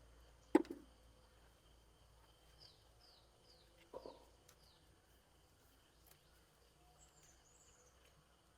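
Faint bird chirping: a run of five short falling chirps, then a few more near the end. A sharp click comes just after the start and is the loudest sound; a duller knock follows about four seconds in.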